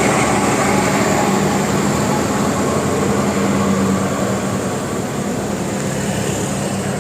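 Large vehicle engine running steadily amid road traffic noise, a continuous drone that eases off slightly about four seconds in.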